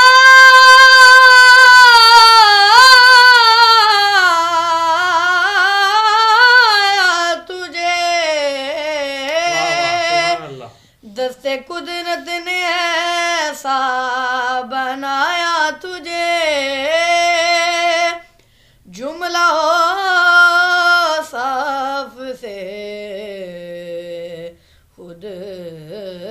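A boy's high voice singing an Urdu naat unaccompanied, holding long, ornamented notes that waver in pitch. It is loudest in the first few seconds, then goes on in shorter phrases with two brief breaks for breath.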